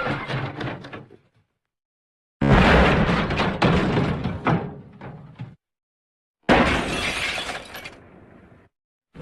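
The MGM 'elephant smash' sound effect, played over and over: a sudden crash of shattering glass and debris that dies away over two to three seconds, with dead silence between plays. A crash dies out about a second in, the next hits about two and a half seconds in, a third hits near seven seconds and cuts off abruptly, and a fourth starts at the very end.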